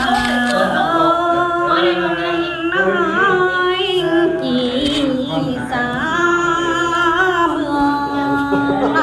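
A woman singing a Mường folk song, holding long notes about a second each and bending the pitch between them.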